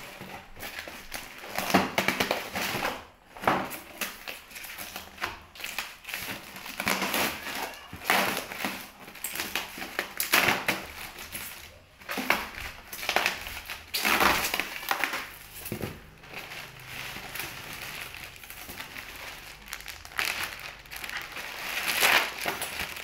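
Hands handling and prying open a polystyrene foam box wrapped in plastic inside a cardboard carton: irregular crunching, crinkling and scraping of foam, plastic film and cardboard, with the foam lid pulled free near the end.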